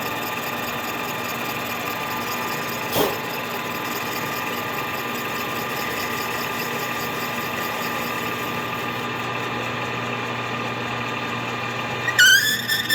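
Milling machine running steadily with a constant hum and whine while facing the base of a Stihl MS 261 chainsaw crankcase, with a single sharp knock about three seconds in and a brief loud squeal near the end.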